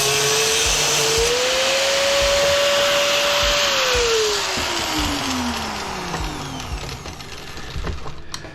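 A high-speed electric power tool runs at full speed, cutting into a vacuum cleaner motor. About four seconds in it is switched off and its whine falls steadily as it winds down. A few knocks follow near the end as parts are handled.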